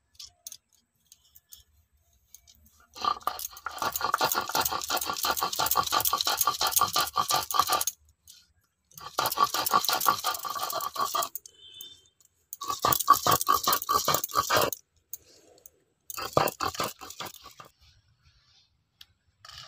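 Soaked mung dal being ground to a paste on a flat stone slab with a stone roller (sil-nora): rapid, rhythmic scraping strokes of stone on stone. They come in four bouts with short pauses, starting about three seconds in.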